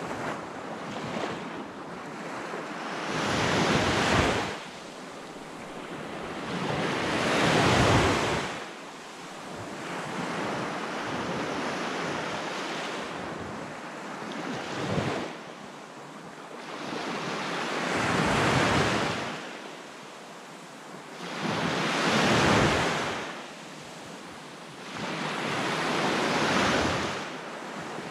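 Small waves breaking and washing up a sandy beach, each one swelling and then draining away every few seconds, with a quieter stretch in the middle.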